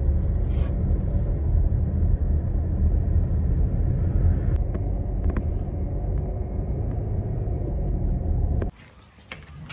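Steady low rumble of a car driving, heard from inside the cabin. It cuts off abruptly near the end, leaving a much quieter background.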